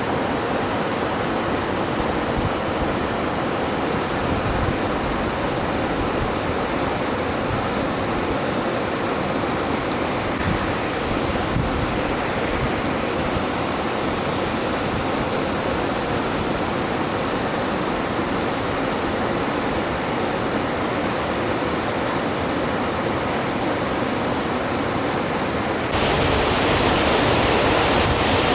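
Steady rush of a clear mountain river running over rocks. Near the end the sound turns abruptly louder and hissier.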